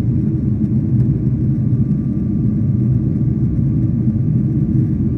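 Airliner cabin noise in flight: the steady low rumble of the jet engines and rushing air heard from a window seat, with a faint steady whine above it.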